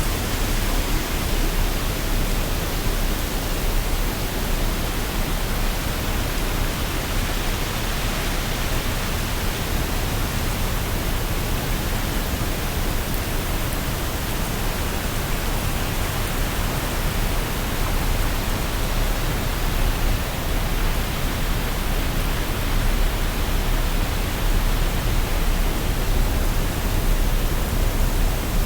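Waterfall: a steady, unbroken rush of falling water, full and even from deep rumble to hiss.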